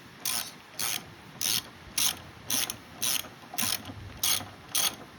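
Socket ratchet wrench clicking in short bursts about twice a second as the handle is swung back and forth, loosening a lawnmower spark plug.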